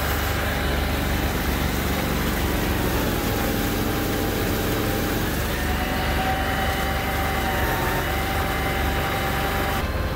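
Argo Conquest 8x8 amphibious ATV's engine running steadily while it drives across water, with water churning from its spinning wheels. The engine note rises slightly about halfway through.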